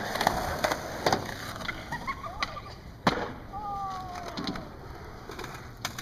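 Skateboard on a concrete skatepark: wheels rolling, with a quick run of clacks and knocks from the board hitting the ramp and ground in the first second and one sharp knock about three seconds in.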